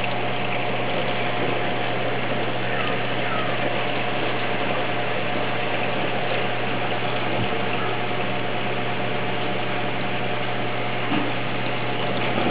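Reef aquarium pumps running steadily: a constant low hum under an even hiss of circulating water.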